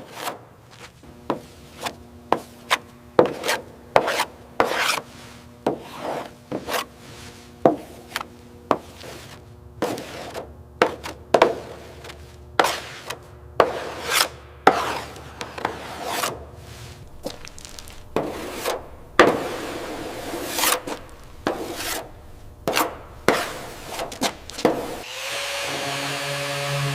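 Repeated short rasping strokes of a hand tool scraping a surface, about two a second, over a faint steady hum. Music comes in near the end.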